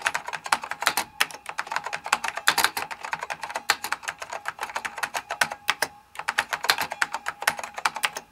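Fast, continuous typing on a vintage Zenith mechanical keyboard with ALPS key switches: a dense run of sharp key clicks, with a brief pause about six seconds in.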